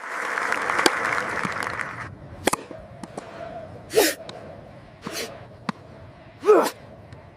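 Crowd noise fades away over the first two seconds, with a few sharp knocks like a racket striking a tennis ball. Then come three sneezes, about a second apart, from around four seconds in.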